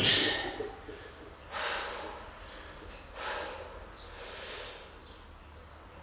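Heavy breathing of a weightlifter standing between reps of heavy paused back squats with the barbell on his back: a forceful exhale at the start as he finishes the rep, then three deep breaths about a second and a half apart as he catches his breath and braces for the next rep.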